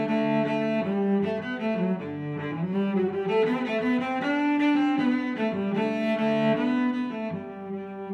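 Background music led by bowed strings, a cello-like melody playing one sustained note after another.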